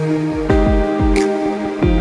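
Background electronic music: a steady kick-drum beat about four times a second under held synth chords, which change about half a second in.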